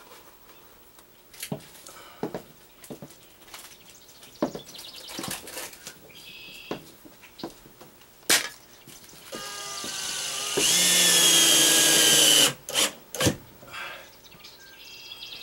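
A power drill runs for about two seconds near the end, its motor pitch rising as it comes up to speed, then stops suddenly: driving a screw through a shower-base clip into a wall stud. Before it come scattered knocks and clicks of fasteners and tools being handled, with one sharp knock a little before the drill.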